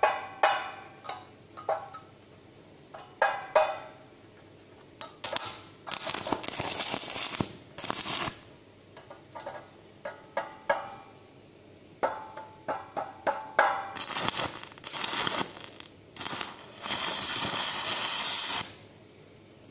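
Sharp knocks on metal with a short ring, then several bursts of crackling, sputtering noise lasting one to three seconds each, the longest near the end: stick welding on aluminium, the arc struck and run in short bursts.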